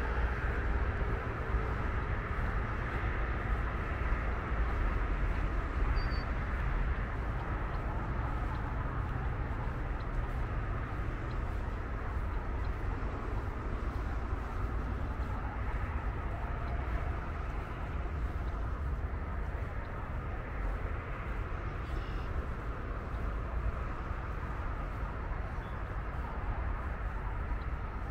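Steady, continuous rumble of distant road traffic, heaviest in the low end, with no distinct events.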